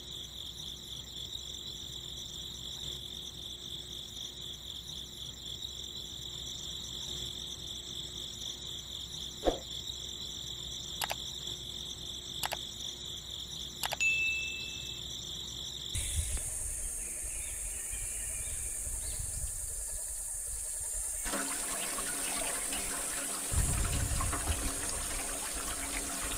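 Steady high insect trill, like a cricket, with a few light clicks. About two-thirds of the way through it cuts to a small electric water pump running, with water gushing.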